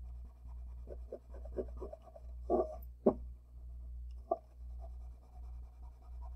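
Orange wax crayon scribbling quickly on paper: a run of short back-and-forth rubbing strokes, with a few sharper knocks about halfway through, over a steady low hum.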